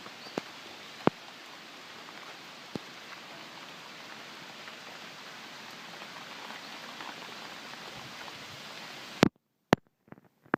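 Heavy rain pouring down, a steady hiss with a few sharp drop ticks. About nine seconds in there is a loud click and the rain sound cuts off suddenly, leaving a few faint clicks.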